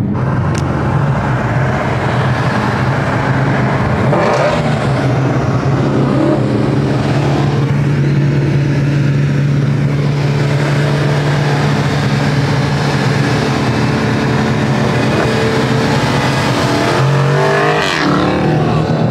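Ford Mustang Shelby GT350's V8 engine driving, its note mostly steady with a brief rise in pitch about four seconds in and a shift in the note near the end.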